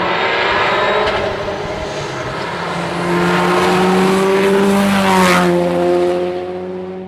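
Mitsubishi Lancer Evolution hill-climb car's turbocharged four-cylinder engine at full racing effort through a hairpin. Its pitch dips, then climbs hard, with a gear change about five seconds in, and the sound fades near the end as the car pulls away.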